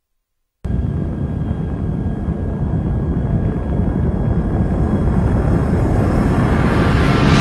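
Title-sequence sound effect: a loud, steady rumbling noise that starts abruptly about half a second in and grows brighter near the end.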